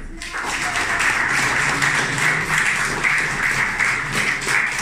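A roomful of people applauding, many hands clapping at once; it starts abruptly and keeps up steadily.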